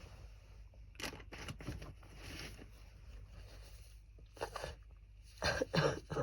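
Wet, phlegmy coughing from a bad cold, in short bursts: a cluster about a second in, another past four seconds, and the loudest near the end.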